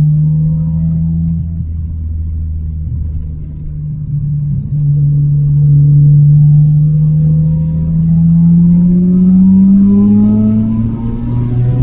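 Mazda RX-7 FD3S's single-turbo 13B rotary engine running hard at a steady pitch, easing off briefly about two seconds in. From about eight seconds in it climbs in pitch as the car accelerates, with a faint high whine rising alongside, then drops sharply near the end as the driver shifts or lifts.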